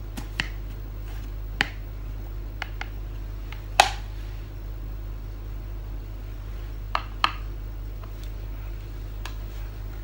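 Scattered light clicks and knocks, a few seconds apart and the loudest about four seconds in, from handling a plastic jar of aloe vera gel, with a faint steady low hum underneath.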